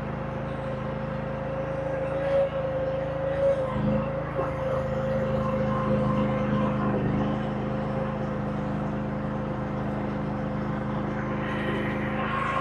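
Engine of a compact earthmoving machine running steadily under work, with a steady whine over the engine note.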